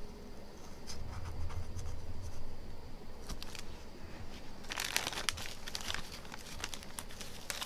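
Plastic knife scraping and peeling old adhesive off a phone screen that has been softened with glue remover: irregular scratching and crinkling with small clicks, busiest about five seconds in.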